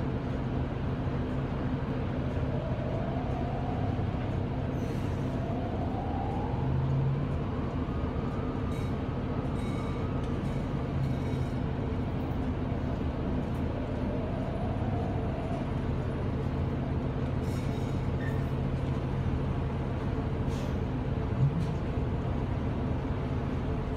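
City transit bus engine running steadily, heard from inside the passenger cabin. A whine rises in pitch several times in the first half and once more after the middle, and a single sharp knock comes near the end.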